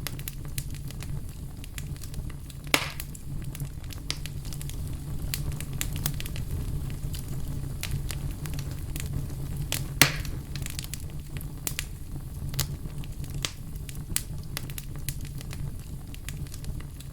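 Wood fire crackling, with many small sharp snaps over a steady low rumble, and two louder pops, one about three seconds in and one about ten seconds in.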